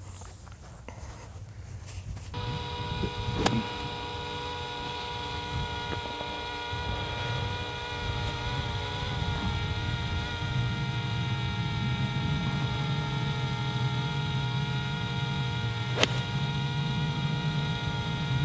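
Golf cart running, a steady motor hum and whine that starts abruptly a couple of seconds in and grows a little stronger partway through, with two sharp knocks along the way.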